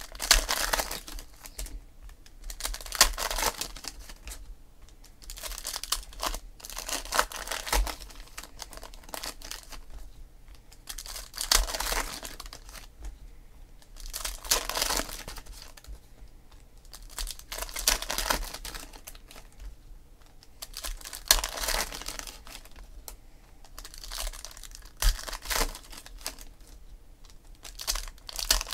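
Foil wrappers of Panini Donruss Optic football card packs being torn open and crinkled, pack after pack. The crinkling comes in short bursts about every three seconds.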